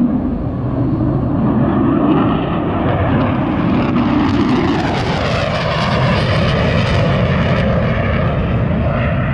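Fighter jet flying past low, its engine noise loud and steady, growing brighter with a sweeping shift in pitch in the middle of the pass.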